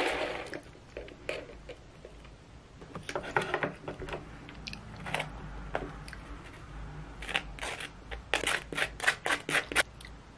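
Butter knife spreading cream cheese on a toasted bagel half: short scraping strokes, a few at first, then a quick run of them near the end.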